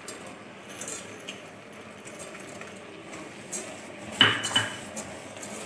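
Sugar tipped into a steel cooking pot and stirred into grated pumpkin, with soft scraping and small clicks, and one ringing clink against the pot about four seconds in.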